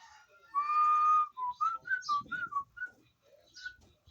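Whistling: one long held note, then a quick run of about eight short notes that rise and fall in pitch.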